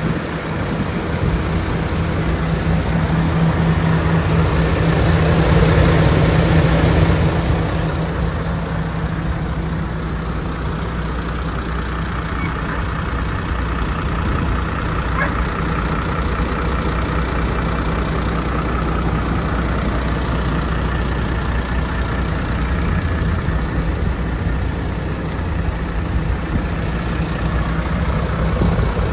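MAN TGX 26.500 tractor unit's 12.4-litre straight-six diesel idling steadily, swelling a little louder for a few seconds about five seconds in.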